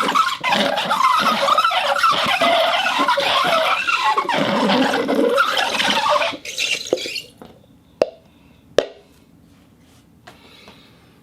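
Rubber band rubbed against a rosin board, giving a loud, continuous squeaking and creaking with wavering pitch that fades out about seven seconds in. Two sharp clicks about a second apart follow.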